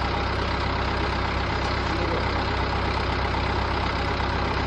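Engine of the heavy machine handling the tree running steadily at idle, a constant low drone.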